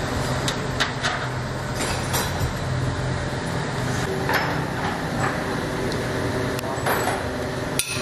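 Scattered metallic clicks and knocks as engine parts are handled and fitted against the engine block, over a steady workshop hum.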